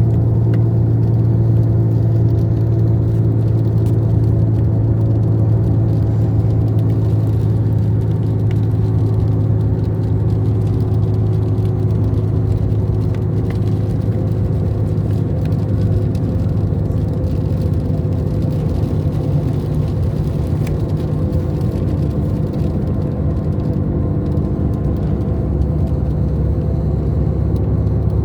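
Steady low hum with many overtones, unchanging throughout.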